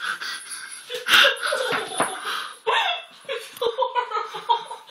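People laughing and giggling.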